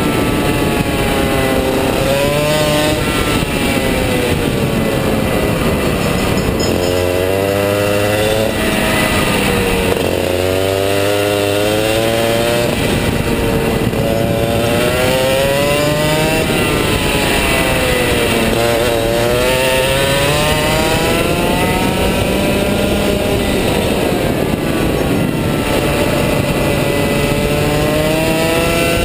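Rotax Max 125 cc two-stroke kart engine under racing load, its revs climbing and dropping again and again as the kart accelerates out of each corner and lifts for the next, heard close up from onboard.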